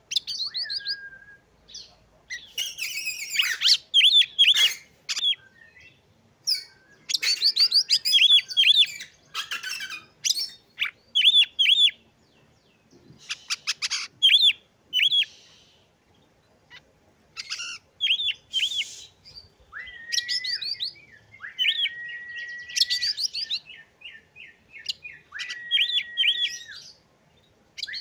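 Oriental magpie-robin singing in bursts of varied phrases: quick runs of sharp repeated notes and scratchy, busy passages. In the second half, several long level whistles are held for a second or more.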